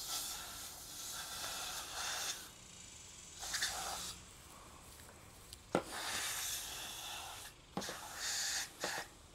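Canned compressed air hissing in several short bursts, blowing water out of the motorcycle's crevices to dry it, with a couple of sharp clicks in between.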